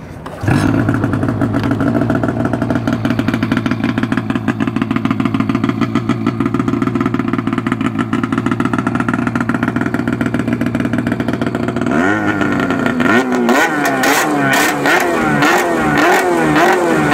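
A 2016 Arctic Cat M8000 snowmobile's 800 cc two-stroke twin, fitted with a Jaws aftermarket exhaust can, starts for the first time, catching about half a second in. It runs at a steady idle, and from about twelve seconds in the revs rise and fall repeatedly.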